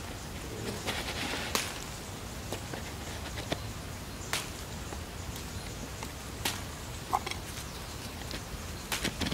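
Chili plant leaves rustling and small chili peppers being picked by hand, with a few sharp snaps spread out as the stems break.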